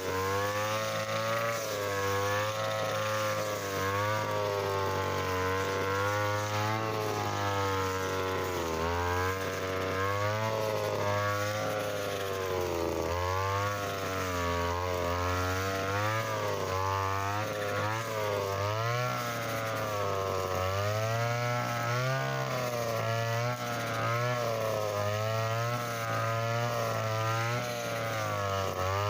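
Mitsuyama brush cutter with a 2.4 mm nylon line head, its engine running hard while cutting thick, tough field grass. The pitch keeps sagging and picking back up as the line meets dense clumps.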